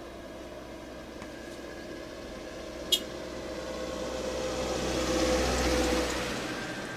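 Small SUV approaching on an asphalt road and driving past, its engine and tyre noise swelling to a peak about five seconds in and then fading. A single sharp click about three seconds in.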